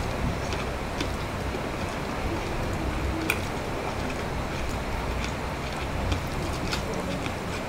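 Steady rain falling, with a low rumble under it, and scattered small clicks and smacks of bare-hand eating of rice and fish.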